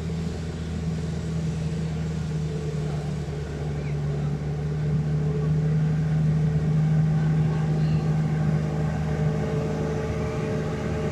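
A motor engine droning steadily at a low pitch, growing louder through the middle and easing a little near the end.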